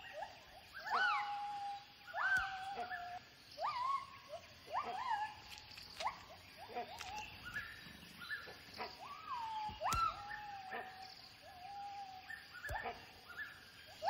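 Gibbons calling: a series of rising whoops, about one a second, each sweeping up in pitch and then levelling off into a short held note.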